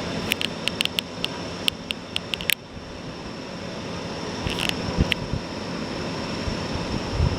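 A moving vehicle's steady road and wind noise, with a run of sharp clicks in the first two and a half seconds and a few low thumps later on.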